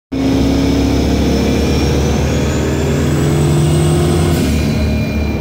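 Twin-turbo Dodge Dakota R/T's 5.9-litre V8 driving at highway speed, through chambered Flowmaster-style mufflers: a loud, steady engine drone with road noise. A thin high whistle climbs in pitch about two seconds in and changes again near the end.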